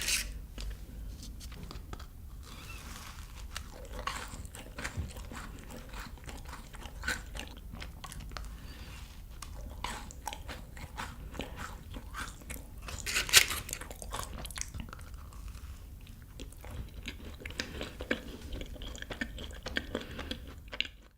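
Close-miked ASMR eating sounds of chocolate dessert: a steady run of small crunching bites and wet chewing, with a louder crunch about 13 seconds in.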